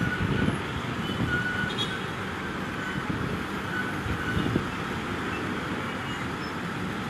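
City road traffic noise: a steady rumble of vehicle engines, with a few short, faint high tones now and then.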